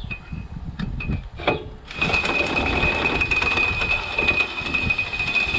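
Cordless impact wrench driving in the bolt of a lawn tractor's double stack pulley: a few short trigger bursts, then a steady hammering run of about four seconds with a high whine.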